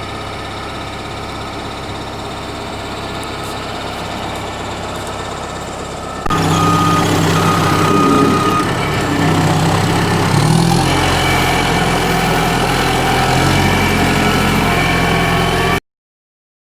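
V8 engine running steadily, in two separate clips: the second, from about six seconds in, is louder, and its pitch shifts about ten seconds in. The sound cuts off abruptly near the end.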